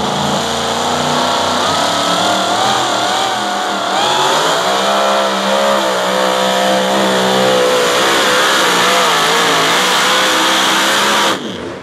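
Supercharged engine of a super modified two-wheel-drive pulling truck running flat out under load as it drags the sled. Its pitch wavers, then climbs about four seconds in and holds high, and the sound cuts off sharply near the end.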